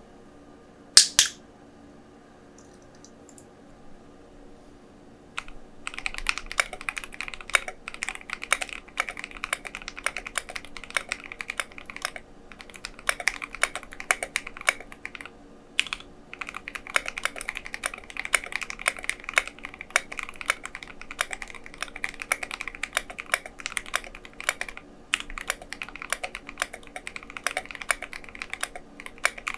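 Fast typing on an ID80 Plus mechanical keyboard with Akko Starfish linear switches and Domikey SA keycaps: a dense run of keystrokes starts about five seconds in, with a few brief pauses. About a second in there is a single sharp click.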